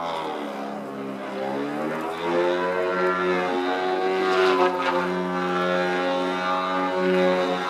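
Engine and propeller of a radio-controlled Extra 300 model aerobatic plane in flight: a continuous buzz whose pitch drops just after the start and climbs back up around two seconds in.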